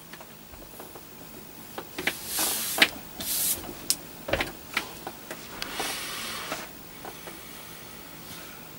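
Handling noises close to the microphone: scattered light clicks and knocks with several short bursts of rustling hiss, the longest lasting about a second and a half near six seconds in.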